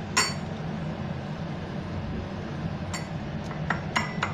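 Pestle striking inside a small steel mortar, crushing garlic. There is one sharp clinking knock at the start, then a quick run of about five clinks near the end, over a steady low hum.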